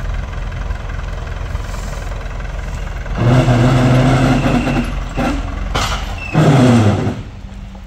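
Old Massey Ferguson tractor engine running with a steady low rumble as it moves, pitched tones rising over it for about two seconds from about three seconds in and again briefly near the end, then the engine sound falls away.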